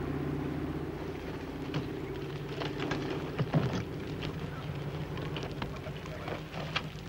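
Steady drone of a propeller aircraft's engines overhead, easing off slightly, over the crackle and snap of bonfires, with the sharpest snaps about halfway through.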